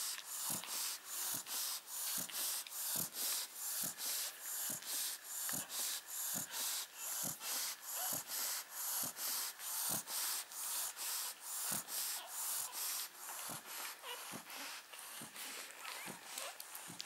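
Shar-pei dog breathing fast in a steady rhythm, about two or three breaths a second, a little softer near the end.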